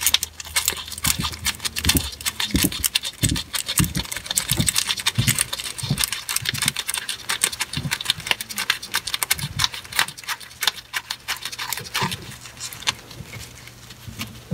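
Stainless steel worm-drive hose clamp being handled and fed around a patched pipe by rubber-gloved hands: rapid, irregular metallic clicks and rattles of the band, with occasional soft thuds of handling.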